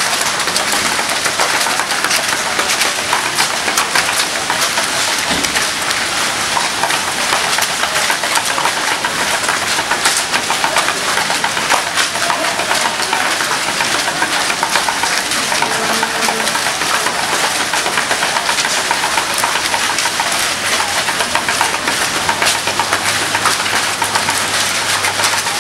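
Steady patter of a mass of marathon runners' footsteps on wet pavement, with discarded plastic drink cups crackling underfoot. A low steady engine hum comes in near the end.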